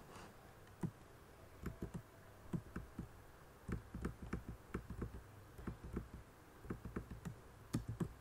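Computer keyboard keys being pressed: irregular clicks, several a second, starting about a second in.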